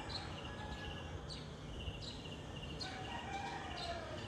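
Outdoor ambience: a rooster crows faintly in the distance about three seconds in, over high chirps that repeat about once a second and a steady pulsing insect trill.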